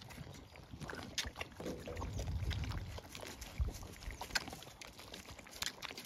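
Zwartbles sheep drinking from a shallow muddy puddle: wet slurping and sucking of muzzles in the water, broken by a few sharp clicks.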